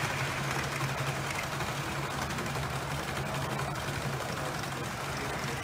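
HO-gauge brass model trains running on the layout track: a steady motor hum with metal wheels rolling on the rails and faint clicks.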